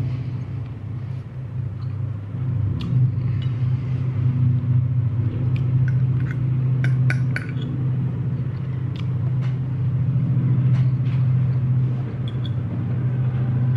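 Metal cutlery clicking and scraping against a plate now and then, over a steady low rumble that is the loudest sound throughout.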